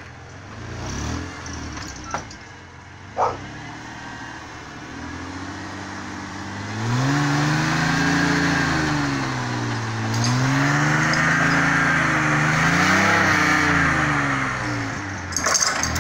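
Truck engine revving hard under load, its revs rising and falling several times from about seven seconds in as it strains to yank a stuck truck free. A sharp knock about three seconds in.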